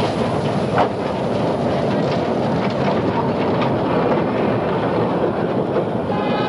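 Steam tram coaches rolling past at close range: a steady rumble and rattle of wheels on street rails, with a brief sharper knock about a second in.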